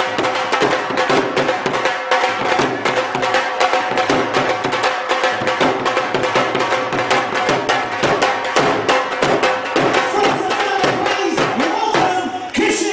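Two dhol drums beaten together in a fast, driving rhythm. The drumming breaks off just before the end as a shout rises.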